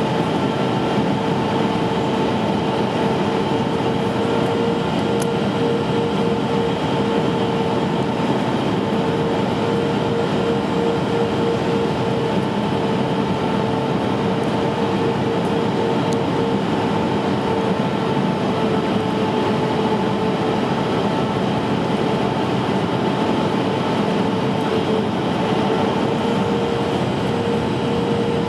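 Cabin noise inside a Boeing 737-500 in flight on approach: the steady roar of airflow and its CFM56 turbofan engines, with a steady engine whine that rises slightly in pitch near the end.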